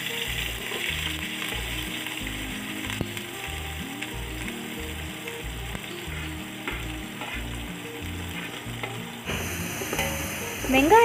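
Sliced onions sizzling steadily as they fry in hot ghee and oil in an aluminium pot, stirred with a metal spatula near the end. A soft music track with a low, stepping bass line runs underneath.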